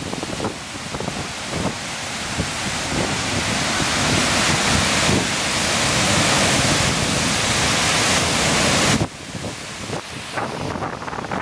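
Rushing water of waterfalls, a steady loud hiss, with wind buffeting the microphone in low gusts. About nine seconds in the water sound drops away suddenly, leaving quieter wind rumble.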